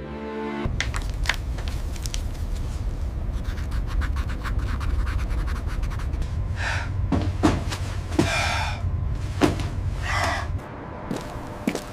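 Steady low rumble with scattered knocks, clanks and scrapes, and a few short breathy gasps in the second half. Music fades out just under a second in.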